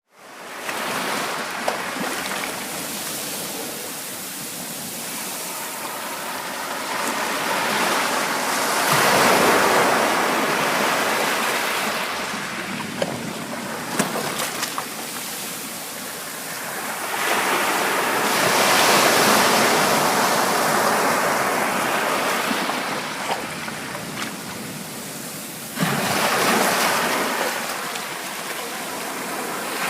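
Ocean surf: waves breaking and washing up on a shore, the rushing water swelling louder about every eight seconds as each wave comes in.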